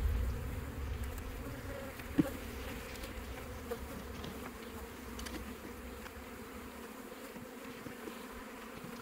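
Honeybees buzzing around an opened hive, a steady hum. A single knock comes about two seconds in.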